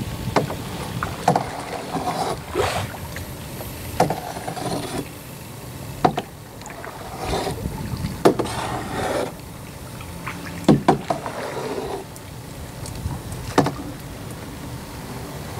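Canoe paddling: irregular splashes and swishes of the paddle in the water, with a few sharp knocks of paddle or hull about every second or two.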